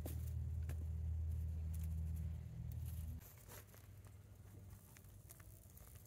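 Dry mulch and soil rustling and crackling in short scattered clicks as sweet potatoes are picked out by hand, over a steady low rumble that cuts off suddenly about three seconds in.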